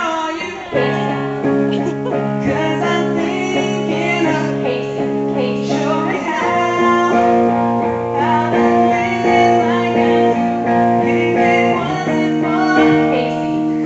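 Live band playing a song, with strummed guitar over held chords that change about every six seconds.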